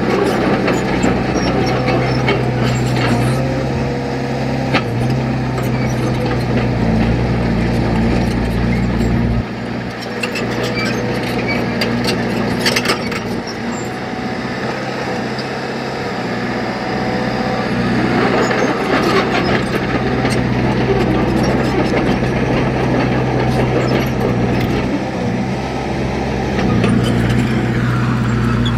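Heavy diesel engine of a construction machine running steadily, the deep part of its note falling away about a third of the way in and coming back stronger near the end, with scattered clanks.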